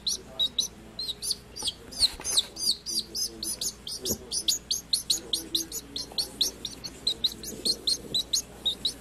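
Baby chicks peeping: a fast, continuous string of short, high cheeps, several a second.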